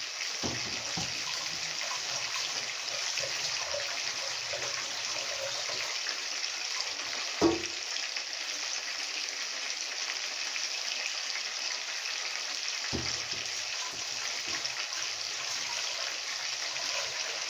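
Tap water running steadily while rice is washed in a pot, with a single sharp knock about seven and a half seconds in.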